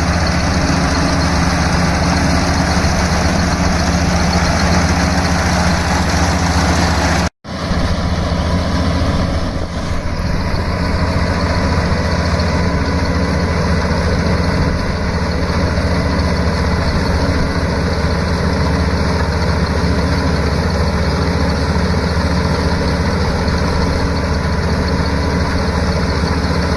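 Rice combine harvester engine running steadily with a deep, even hum, cutting out for a moment about seven seconds in and then carrying on unchanged.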